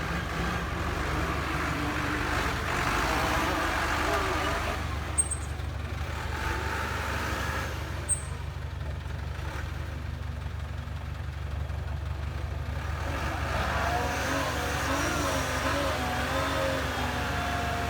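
Heavy diesel engine running steadily at low revs, with people's voices over it. Two short sharp clicks come about five and eight seconds in.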